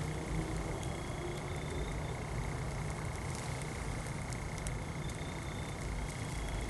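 Quiet outdoor night ambience: a steady low rumble with an even hiss, a faint steady high whine, and a couple of brief faint chirps about a second in and again near the end.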